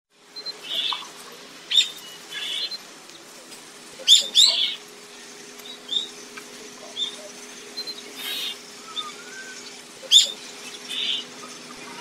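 White-shouldered starling calling: a run of short, high chirps with a few louder, sharp calls every few seconds, over a faint steady low hum.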